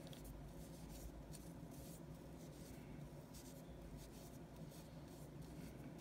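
Faint soft rubbing and light scratches of fingers handling an acrylic nail brush and working its bristles, over a low steady room hum.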